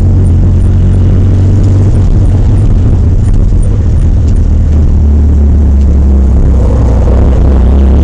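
Porsche 968's 3.0-litre four-cylinder engine running hard, heard as a loud, steady low drone with road and wind noise over it; the low note shifts about five seconds in.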